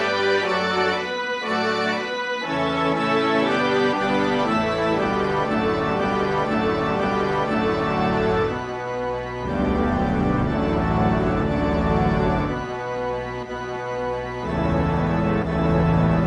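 Background music of sustained organ-like keyboard chords, changing every second or two.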